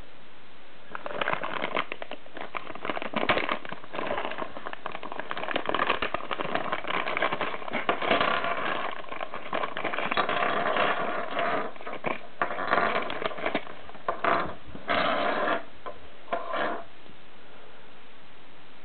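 Clear plastic zip-lock bag crinkling and rustling in irregular crackly bursts as hands handle it and pull a small plastic speaker terminal out; it stops near the end, leaving a steady hiss.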